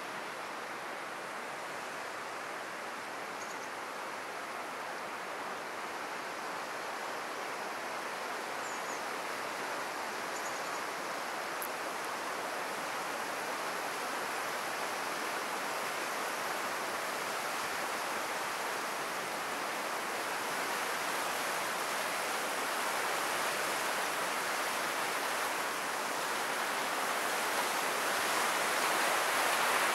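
Fast, turbulent water of the Buna river rushing, a steady noise that grows gradually louder.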